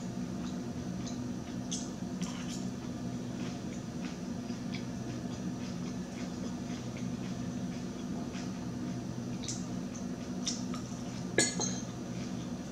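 Metal fork clinking and scraping on a plate as salad is picked up, in scattered light clicks with one sharper clink about eleven seconds in, over a steady low hum.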